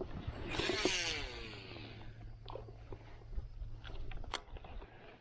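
A fishing reel whirs as line pays out on a cast, falling in pitch as the spool slows, followed by a few sharp clicks and taps of reel and tackle.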